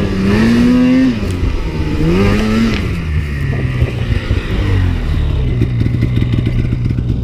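Snowmobile engine, a turbocharged sled, revving up twice in quick succession and then settling to a steady lower speed, with rapid clattering near the end.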